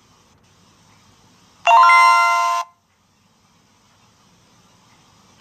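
An electronic chime sound effect: a bright ding with several clear tones sounding together, starting abruptly a little under two seconds in and lasting about a second.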